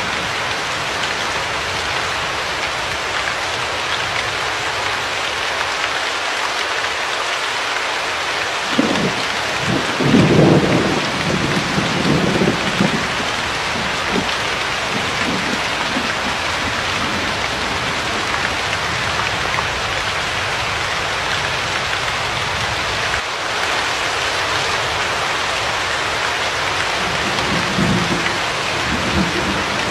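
Steady rain falling, with thunder rumbling about nine seconds in and again near the end.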